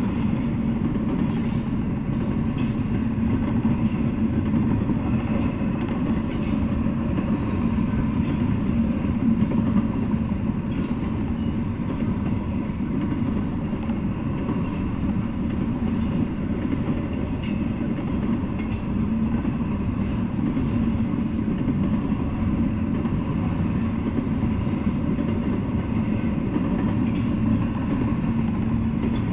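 Double-stack intermodal freight train's container well cars rolling past at steady speed: a continuous low rumble of steel wheels on rail, with a few faint ticks.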